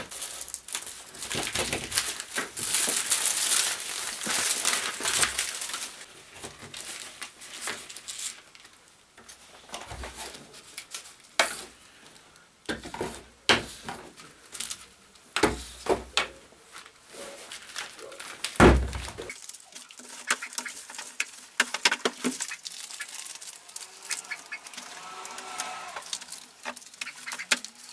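Workbench handling sounds while covering foam rotor blades with heat-shrink film: rustling of the plastic film for the first few seconds, then scattered knocks and taps on the wooden bench, with one louder thump about two-thirds of the way through.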